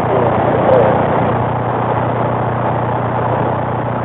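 CB radio receiver on AM channel 19 hissing with steady static and a low hum, a faint, garbled voice buried in the noise about a second in.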